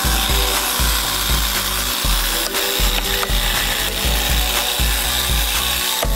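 Small 12-volt air compressor, converted into a vacuum pump, running loudly and steadily. Near the end, sharp crackles come from a crushed plastic bottle on its line.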